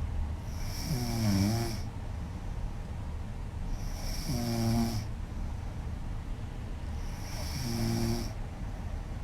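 A woman snoring loudly: three snores about three and a half seconds apart, each lasting about a second, a low pitched drone with a breathy hiss over it.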